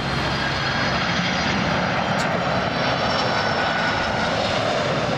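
Boeing 767-300ER freighter's twin General Electric CF6-80C2 turbofans on landing approach, gear down, passing low overhead: a loud, steady rushing jet roar with a faint high whine, its pitch sinking slightly as the aircraft goes past.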